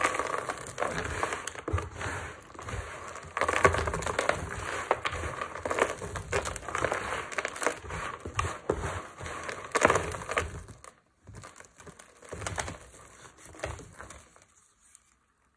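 Dry lavender and baby/tar soap chunks crushed and crumbled between the hands: a dense, crunchy crackle. About eleven seconds in it thins to a few scattered crunches, then fades out near the end.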